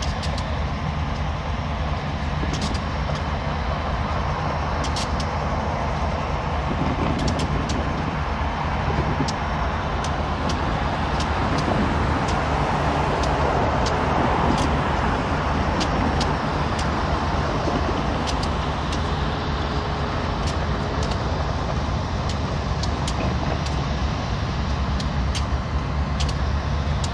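Diesel-electric locomotive engines running steadily, with a deep hum that grows a little louder partway through. Scattered light clicks are heard throughout.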